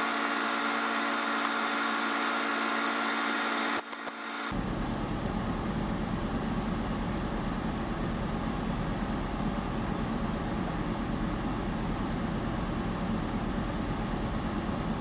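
Steady machinery running, first as a hum of several steady tones, then about four seconds in changing abruptly to a noisier, deeper rumble.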